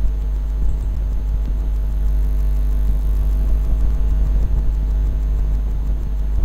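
Steady, loud low electrical hum with a ladder of evenly spaced overtones, unchanging throughout.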